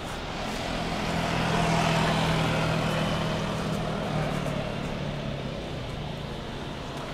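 Boeing 777 airliner's jet engines at takeoff thrust as it lifts off and climbs away: a steady jet roar with a low hum, swelling to its loudest about two seconds in, then slowly fading.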